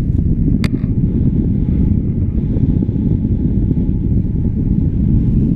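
Wind rushing over the microphone of a handheld action camera in flight: a loud, steady, low rumble. One sharp click comes about half a second in.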